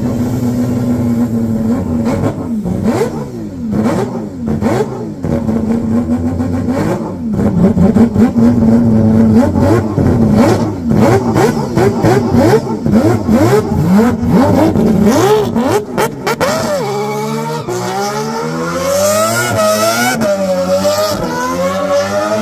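Pulse Performance's naturally aspirated six-rotor Wankel engine, three 13B two-rotor engines joined into one, revving hard under load in a Mazda RX-7 doing a burnout. The revs swing up and down with rapid sharp crackles. About 17 seconds in, it changes to smoother sweeps of revs rising and falling.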